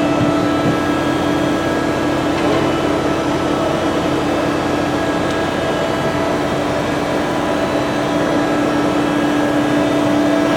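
Mattison surface grinder running: a steady machine hum with a strong constant tone.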